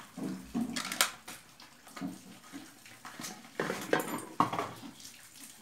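Metal utensils and stainless steel bowls clinking and scraping against each other, with a few sharp clinks, the loudest about a second in, among softer irregular knocks.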